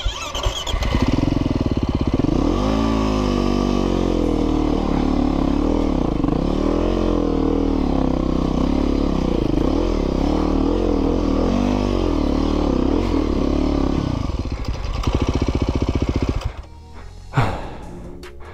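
Dirt bike engine revving up and down over and over, the revs rising and falling every second or so, then stopping about sixteen seconds in. A single short rev comes near the end.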